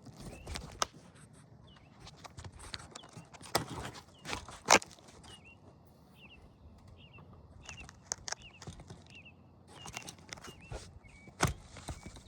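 Scuffs, scrapes and a few sharp knocks of work on a dry asphalt shingle roof, with the loudest knock a little under five seconds in. A series of short high chirps repeats through the middle.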